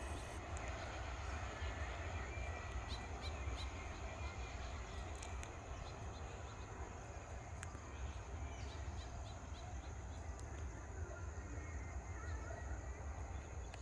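Scattered short bird chirps over a low, steady rumble of outdoor background noise.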